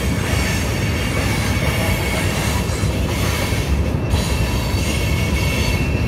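CSX freight train's cars rolling past: a steady, heavy rumble of steel wheels on rail, with a thin, high wheel squeal held over it.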